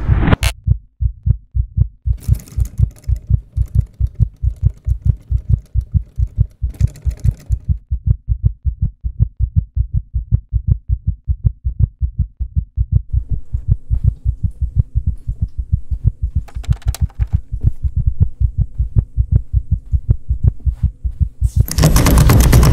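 Heartbeat sound effect: a fast, steady train of deep low thumps that runs without a break. Near the end a loud, harsh burst of noise comes in over it.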